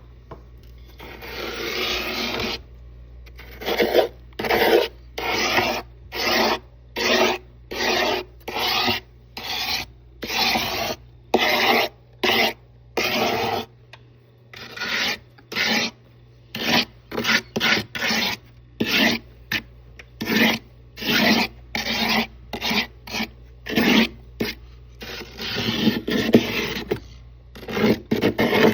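Frost being scraped off the inside of a deep freezer in repeated rasping strokes, about one a second, over a steady low hum.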